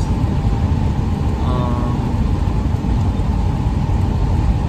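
Steady low rumble of a van on the road, heard from inside the cabin, with a brief vocal sound about a second and a half in.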